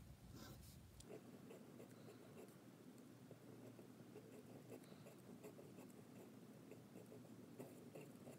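Faint scratching of a Fountain Pen Revolution steel flex nib on a Jinhao fountain pen, drawn across paper in cursive strokes, with small irregular ticks as the nib lifts and lands.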